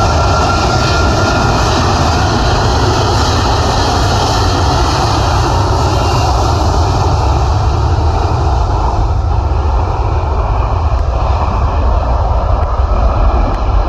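Twin jet engines of a Virgin Atlantic Airbus A330 running as it taxis onto the runway: a loud, steady rush with low rumble beneath. The sound softens in the upper range later on as the aircraft turns away.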